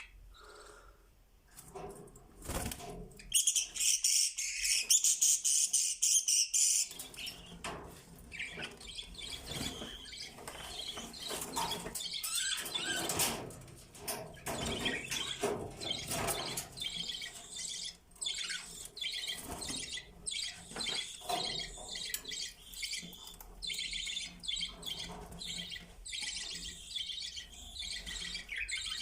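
Budgerigars chirping and warbling in a steady, busy chatter, with a loud run of high, shrill chirps from about four to seven seconds in.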